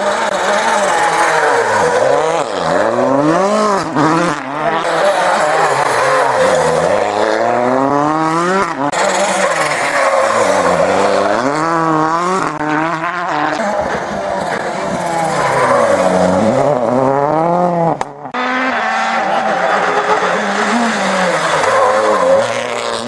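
World Rally Cars' 1.6-litre turbocharged four-cylinder engines driven hard through a bend, one car after another, the engine note rising and falling again and again with gear changes and braking. A brief drop about eighteen seconds in comes before the next car.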